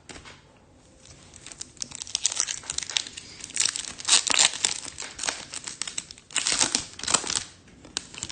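Foil wrapper of a Topps Chrome trading card pack crinkling and tearing as it is opened by hand, in irregular bursts that are loudest about four seconds in and again around six to seven seconds.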